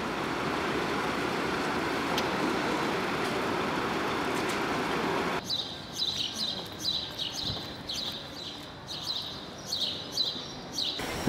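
Steady rushing background noise, cut off suddenly about five seconds in. Then small birds chirping, about two chirps a second, over a quiet background.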